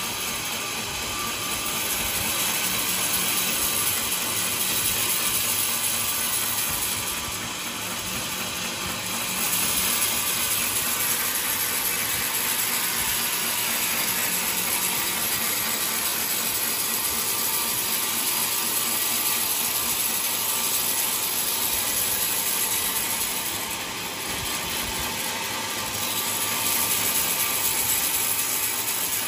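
Sawmill saw running through a coconut log: a steady mechanical noise that eases off briefly twice, about a quarter of the way in and again near the end.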